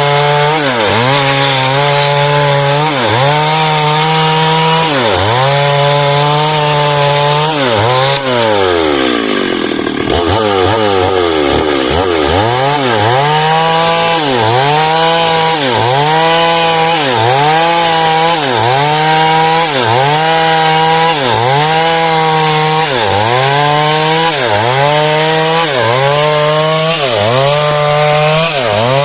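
Chainsaw cutting heartwood timber into door-frame stock. The engine note sags and picks up again in a steady rhythm, about once a second, as the chain bites. About eight seconds in, it slows right down and then revs back up to cutting speed.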